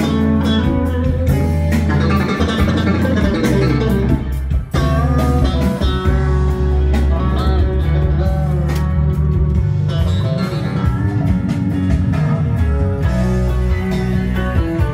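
Recorded music with strong, heavy bass played loud over a Lansche loudspeaker system with plasma tweeters, driven by Thrax amplification, heard in the demo room.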